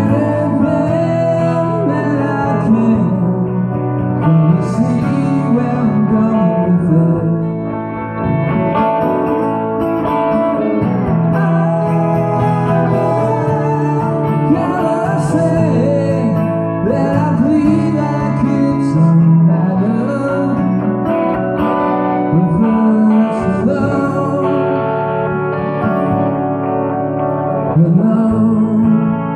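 Live country-rock band playing a slow song: strummed acoustic guitar, electric lead guitar and a pedal lap steel with gliding notes, with a man singing at times.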